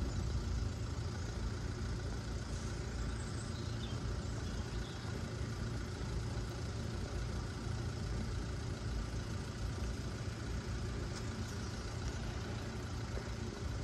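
Steady low rumble of car engines idling.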